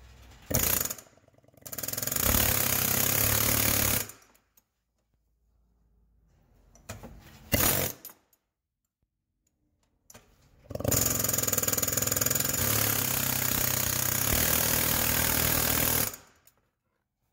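Pneumatic air chisel hammering on the hex of the fan clutch nut to tighten it: a short blip, a rapid rattle of about two and a half seconds, another brief burst, then a longer run of about five seconds.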